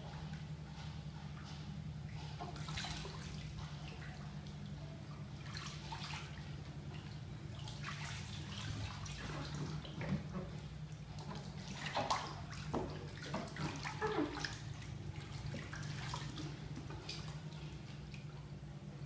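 Bathwater sloshing and splashing as a person moves and turns over in a partly filled bathtub, with a cluster of louder splashes past the middle, over a steady low hum.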